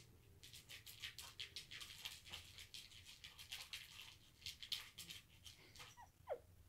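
Cat batting and clawing at a plastic circular track toy and its feather wand: a quick, irregular run of light scratchy ticks and rustles, with a brief falling squeak near the end.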